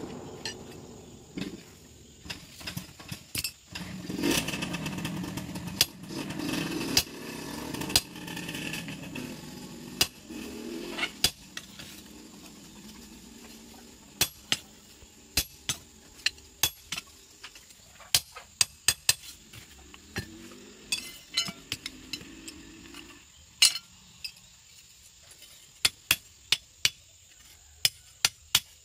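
Hand hammer striking a hot steel machete blade on an anvil: sharp metallic clinks, irregular, often one or two a second with short pauses between runs of blows.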